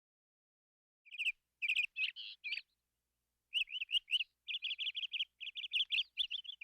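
Northern cardinal singing: a few short slurred whistles starting about a second in, then after a pause a fast run of repeated notes.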